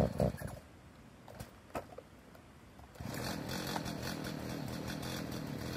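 Cold Stihl two-stroke chainsaw engine starting up about three seconds in, after a quiet stretch with a few faint clicks, then running steadily at idle on choke while it warms up.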